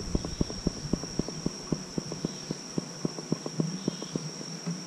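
Insects droning steadily on one high pitch, with a run of light, rapid clicks underneath, about five or six a second.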